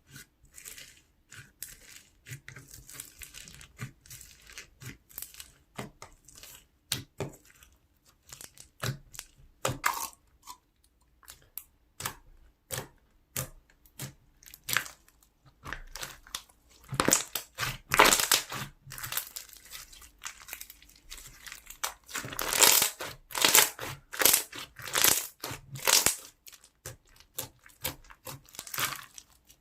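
Slime being squeezed, poked and stretched by hand, giving a run of crackling clicks and pops from trapped air. The crackles get denser and louder in the second half.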